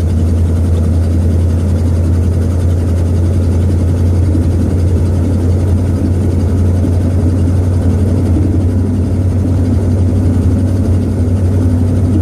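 Steady low drone inside the cabin of a 1966 Ford Thunderbird: its V8 engine running and the road noise of the car under way, unchanging throughout.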